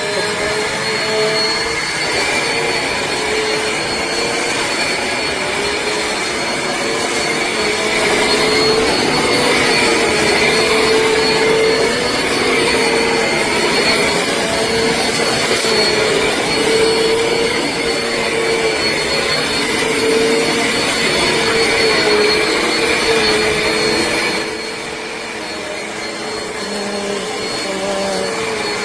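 Eureka Airspeed bagless upright vacuum cleaner running, a steady motor whine with a thin high tone over airflow noise. It gets somewhat quieter about 25 seconds in.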